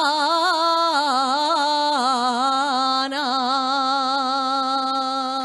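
A woman sings an Asturian tonada unaccompanied, ornamenting the vowel in quick wavering turns before settling about halfway through onto a long held note that slowly fades.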